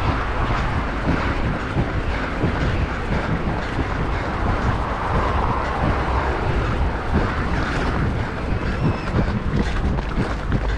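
Steady wind buffeting on the microphone of a camera carried along on a run, a low rumbling rush with scattered faint knocks.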